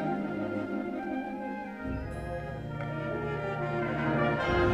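School concert band of saxophones, flutes, brass and tuba playing sustained chords, with a low bass line coming in about two seconds in and shifting to a new note near the end.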